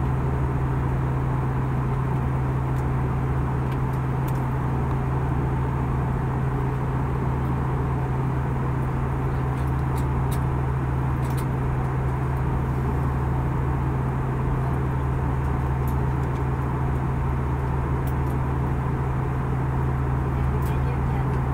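Jet airliner cabin noise in cruise flight, heard inside the cabin: a constant deep hum from the turbofan engines with a steady rush of airflow over it.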